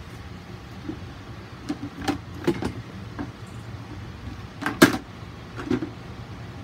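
A few short knocks and clicks of objects being handled, the loudest a sharp knock about five seconds in, over a steady low hum.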